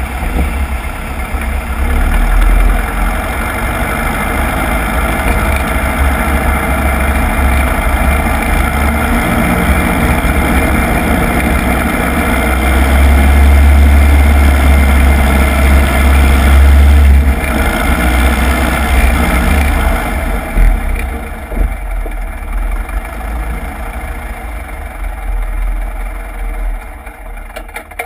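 Piper Cub's engine and propeller running at low taxi power as the plane taxis over snow. The sound swells in the middle and dies down over the last several seconds.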